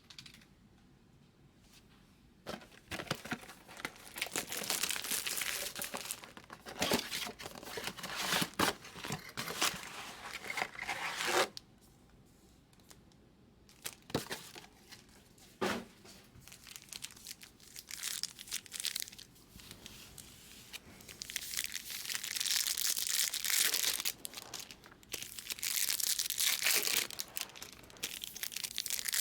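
Plastic wrapping tearing and crinkling as trading card packaging is opened by hand, in stretches of rustle with a short pause partway through and a sharp snap a couple of seconds after it.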